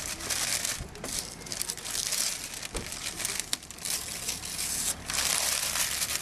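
Masking paper and masking tape being pulled away and crumpled up by hand: irregular paper crackling, loudest near the end.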